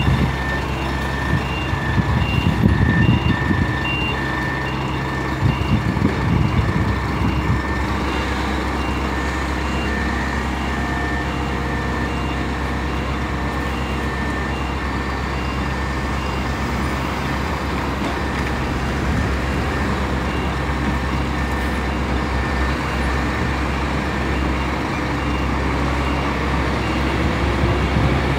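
Scania diesel engine of a new Marcopolo G7 1800 DD double-decker coach running at low speed as the coach manoeuvres, with two louder surges in the first seven seconds. A reversing alarm beeps evenly over the engine for most of the time.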